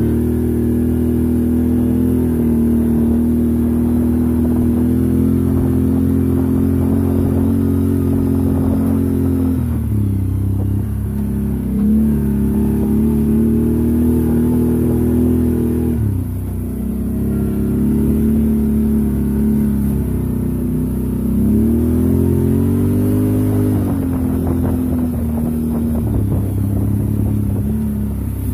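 ATV engine pulling steadily along a dirt trail. Its pitch drops twice as the throttle eases, about a third of the way in and again past halfway, then climbs back as the rider gets on the gas.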